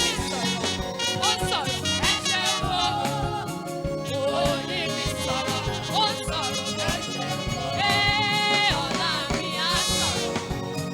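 A gospel praise song: voices singing over live band accompaniment, with a long held, wavering note about eight seconds in.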